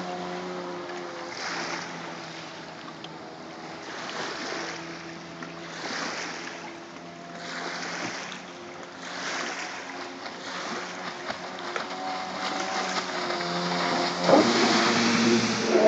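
Yamaha jet ski engine running out on the water, its pitch rising and falling with the throttle, with a rushing noise swelling every couple of seconds. About fourteen seconds in it gets louder as the craft comes close, throwing spray.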